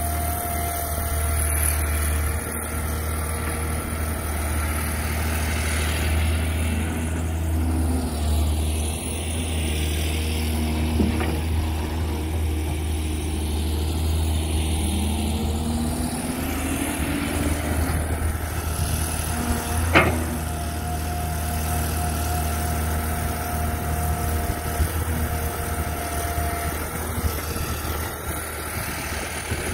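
Caterpillar 320D hydraulic excavator's diesel engine running steadily under load while digging soil. A sharp knock comes about twenty seconds in.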